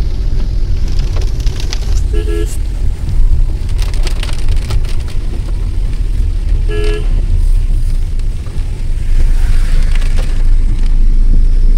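Car driving on a wet road, its engine and tyres making a steady low rumble. A car horn gives two short toots, about two seconds in and again around seven seconds, and a louder hiss builds over the last few seconds.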